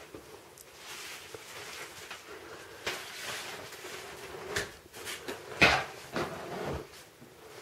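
An umbrella being handled and opened suddenly as a startle test for a puppy: fabric rustling and clicks from its frame, with the loudest sharp snap about five and a half seconds in.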